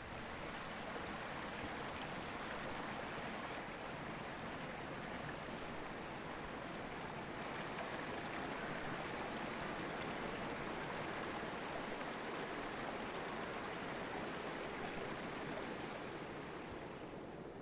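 Steady rushing of flowing water, as of a stream, running evenly throughout.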